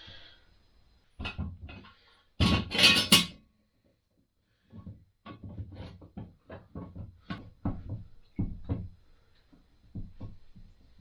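Background guitar music: a couple of louder strums in the first few seconds, then a string of single plucked notes.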